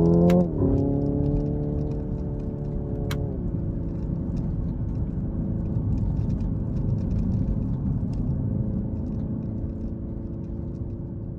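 Hyundai Ioniq 5 N's synthesised engine sound revving up, then dropping sharply in pitch with a click at two simulated gear upshifts, about half a second in and about three seconds in. It then holds a steady note over low road noise and gradually fades.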